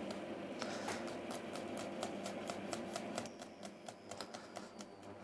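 Chef's knife tapping quickly and rhythmically on a plastic chopping board as garlic cloves are finely sliced, about four taps a second, growing fainter after about three seconds.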